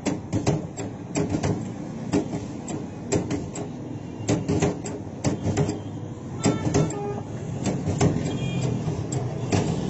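Hand-lever french fry cutter clacking and knocking over and over as its handle is pumped to force potatoes through the blade grid, irregular sharp clunks a few times a second.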